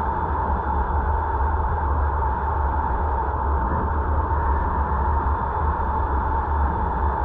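Steady road and wind noise of a car driving at an even speed, with a deep rumble underneath and no change in pace.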